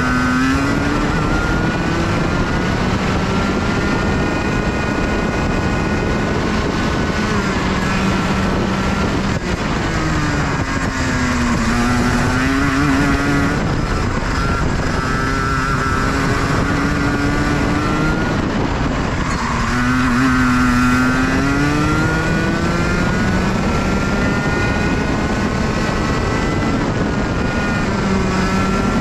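Racing kart engine heard from on board, revving up and down through corners. Its pitch sinks under braking, lowest about twelve seconds in and again about twenty seconds in, then climbs as it accelerates out, with a constant rush of wind and road noise underneath.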